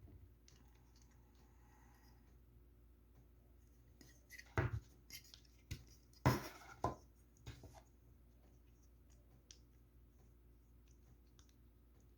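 Hands handling a plastic prize figure and its packaging: a cluster of knocks, clicks and rustles in the middle, with the two loudest knocks about four and a half and six seconds in.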